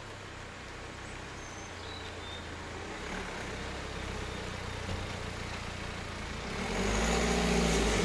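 A police car driving slowly past close by. Its engine and tyre noise grow louder over the last couple of seconds, and the engine note rises and falls as it goes by.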